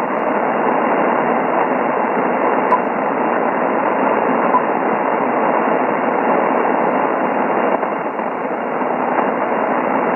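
Icom IC-7610 HF receiver in lower sideband on the 75/80-metre band, playing a steady, raspy hiss of power-line interference with noise blanker 1 switched on; the noise still comes through strongly.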